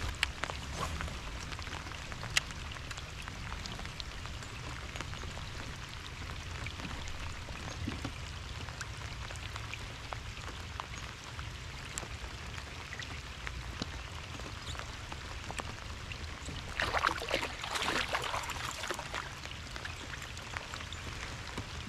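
Steady rain falling on the lake and on rain gear, with scattered drops ticking. Near the end, a couple of seconds of splashing as a hooked small bass thrashes at the surface and is lifted out of the water.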